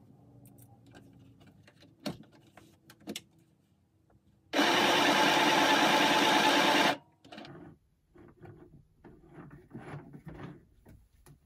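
Small electric sewing machine stitching a seam through cotton fabric, running in one steady burst of about two and a half seconds that starts about four and a half seconds in and stops sharply. Before and after it come faint clicks and the rustle of the fabric being handled.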